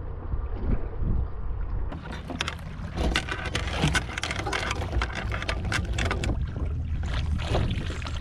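Steady low rumble, then about two seconds in an anchor chain clatters as it runs out over the side of the boat and splashes into the water: a long run of rapid metal rattles.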